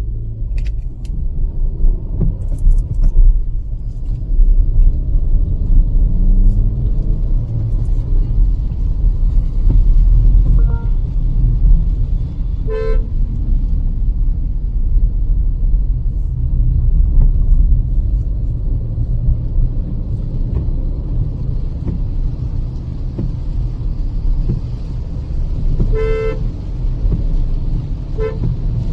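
Steady low road and engine rumble of a Kia Seltos petrol car driving on a highway, with a short car horn toot about halfway through, another later on and a brief third near the end.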